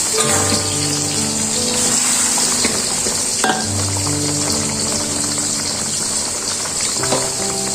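Food sizzling and frying in a hot pan, a steady hiss with a couple of sharp utensil clicks, over soft background music.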